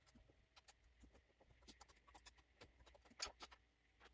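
Faint, scattered clicks and light knocks of a hand screwdriver and screws as a TV mounting bracket is unscrewed from the back of a TV, with a louder pair of knocks about three seconds in.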